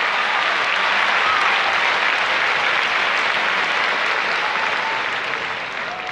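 A large arena crowd applauding, with a few high cheers over the clapping, dying down near the end.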